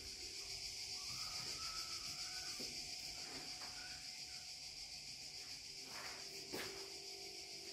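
Steady high-pitched chorus of cicadas, with a few soft knocks beneath it, the sharpest about six and a half seconds in.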